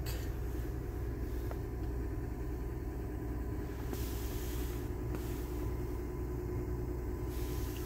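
Toyota 4Runner's 4.0-litre V6 idling steadily, heard from inside the cabin as a low, even hum.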